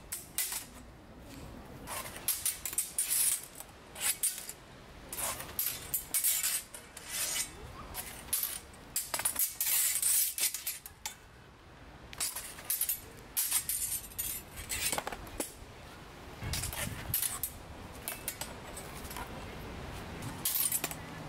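Steel swords and steel bucklers striking each other in sword-and-buckler fencing drills: sharp metallic clinks with a high ring, coming in irregular clusters of a few strikes with short pauses between.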